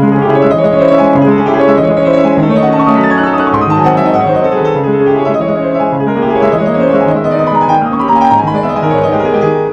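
Yamaha CFX concert grand piano played by hand: a fast, dense passage of many quick notes and chords, starting suddenly.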